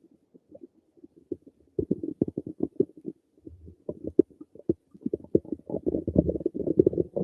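A person's stomach gurgling and rumbling, a quick irregular run of bubbly gurgles. It is sparse at first, then grows denser and louder from about two seconds in, busiest near the end.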